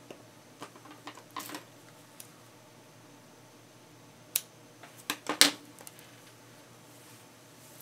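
Light clicks and taps of small crafting tools and supplies being handled, with a few scattered in the first two seconds and the sharpest ones in a quick cluster about five seconds in.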